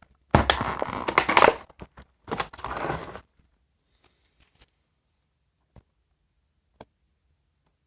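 Packaging crinkling and crackling in two loud bursts as a doll is worked loose from its box, followed by a few faint clicks.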